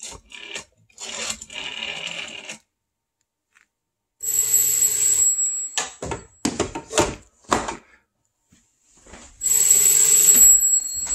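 Rotary dial of an AT&T 554 wall phone spinning back after the last digits are dialed. Then the bell of a Western Electric 302 desk phone rings twice, about five seconds apart, with a few knocks in between.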